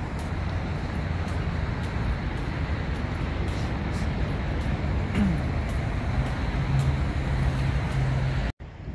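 Steady rumble of road traffic, with one vehicle's engine hum coming up in the last couple of seconds before the sound cuts off abruptly.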